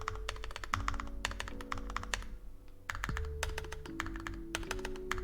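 Fast typing on a mechanical keyboard with cream-stem linear switches, a rapid run of keystroke clacks with a brief pause around the middle.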